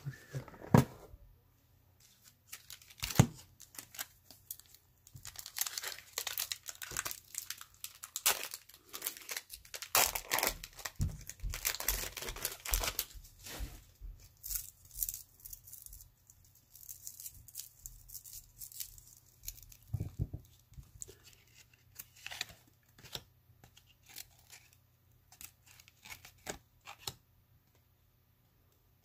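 Baseball card pack wrapper being torn open and crinkled, a dense run of crackling and rustling in the middle, with scattered handling noises either side.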